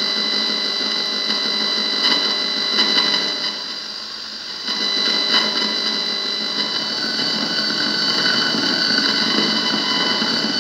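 Electrical interference heard through a home-built receiver's loudspeaker: a continuous noisy buzz with several steady high whistling tones, dipping for about a second around four seconds in, then coming back.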